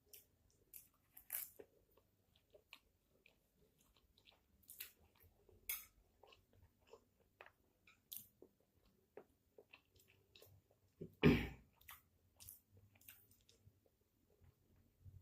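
Close-up mouth sounds of a person eating fried instant noodles: irregular wet chewing clicks and smacks, with one louder sound about eleven seconds in.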